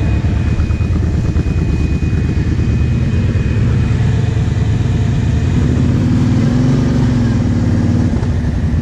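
Quad bike engines running steadily at low revs, with the engine pitch rising briefly about six seconds in.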